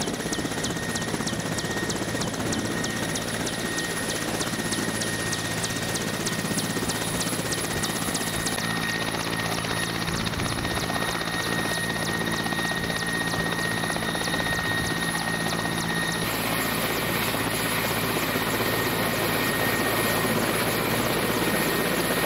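MChS Mi-8 helicopter running on the ground: a steady turbine whine over the rotor noise. The sound jumps in character twice, about 8 and 16 seconds in.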